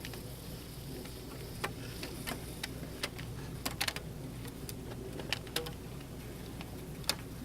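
Scattered small clicks and ticks, about ten at irregular intervals, from a bee queen cage being handled as its cork is worked out. A steady low hum runs underneath.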